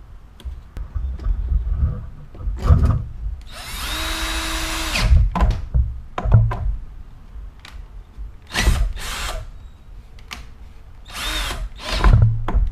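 Power drill-driver driving screws back into a string trimmer's housing: short bursts of the motor whirring, with one longer steady run of about a second and a half about four seconds in. Light knocks as the tool and parts are handled come between the bursts.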